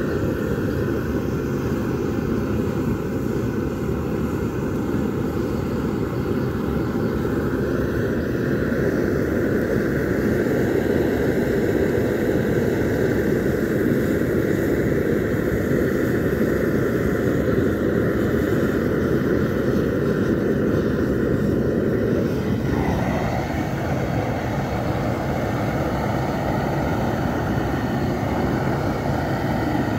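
Gas burner fed from a bottled-gas cylinder, running with a steady rushing noise under cans of tar to melt it. The tone of the rush shifts about three-quarters of the way through.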